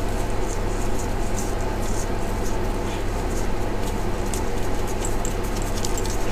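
Light clicks and scrapes of metal as the bolt on a handheld brake pipe flaring tool is undone by hand to release the flared pipe, over a steady low hum.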